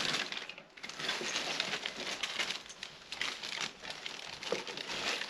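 Plastic packaging crinkling and rustling irregularly as wrapped tripod parts are handled and unwrapped.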